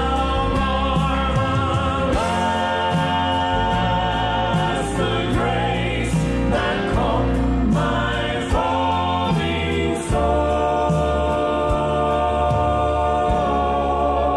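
Group of voices singing a Christian hymn over instrumental backing, holding long notes with a slight vibrato.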